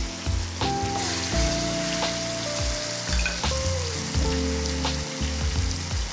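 Beef short ribs searing in hot fat in a stainless steel pot, a steady sizzle, with tongs turning the pieces. Background music with held notes and a soft beat plays over it.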